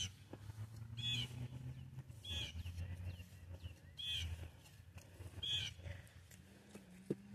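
A bird calling outdoors: a short, high call repeated five times, one to two seconds apart, over a low steady hum.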